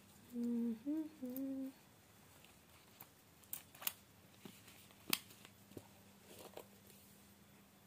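A person hums three short notes, the middle one slightly higher, followed by a few faint scattered clicks.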